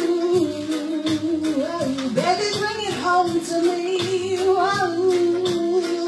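A woman singing wordless held notes over a reggae backing track, with a short vocal run about two seconds in before she settles onto another long held note.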